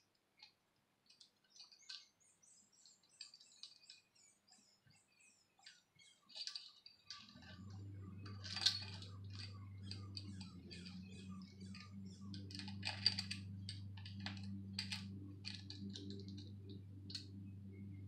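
Light metallic clicks and jingles of a timing chain, the balance shaft chain of a GM 2.2 L Ecotec engine, being fed by hand over its sprockets. A steady low hum comes on about seven seconds in and runs under the clicks.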